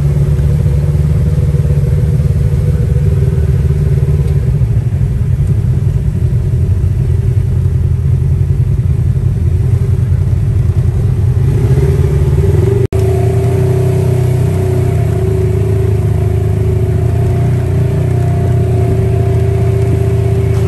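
Off-road buggy engine running steadily under way, heard from the open cab: a low rumble with a steady drone above it. The engine note shifts about twelve seconds in, and the sound breaks off for an instant just after.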